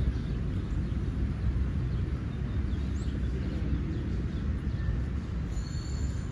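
Outdoor city-park ambience: a steady low rumble of background city noise, with a few faint bird chirps and a brief high whistle near the end.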